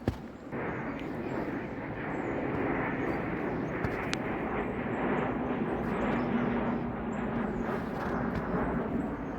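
A small river flowing: a steady rush of water that starts abruptly about half a second in.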